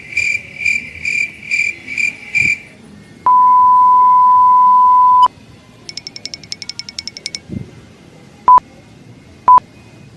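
A sequence of electronic beep sound effects: a run of high chirping pulses, a loud steady beep held about two seconds, a fast rattle of ticks, then two short beeps about a second apart.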